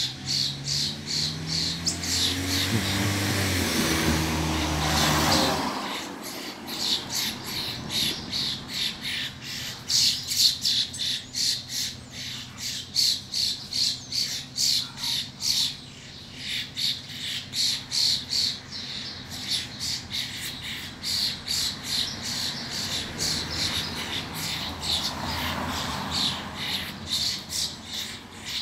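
Birds fighting, giving short harsh squawks in a rapid, unbroken series of about two to three a second. A low engine-like rumble that climbs in pitch in steps runs under them for the first five seconds or so, then stops.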